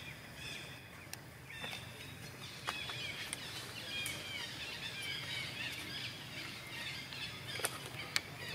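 Outdoor ambience of small birds chirping and twittering in many short calls, busiest in the second half, over a steady low hum, with a few sharp clicks.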